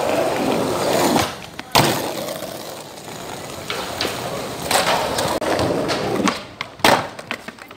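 Skateboard wheels rolling on concrete, broken by sharp clacks of the board hitting the ground, the loudest about two seconds in and again near the end.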